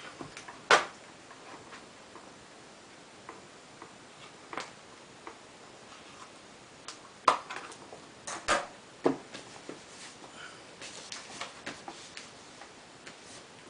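Scattered clicks and light knocks from hand work on a tent's stove jack, with a few sharper clicks about a second in and again two-thirds of the way through.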